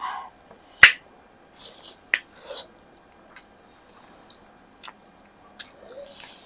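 Close-up eating sounds: several sharp mouth smacks and clicks while chewing, the loudest just under a second in, with softer wet noises between.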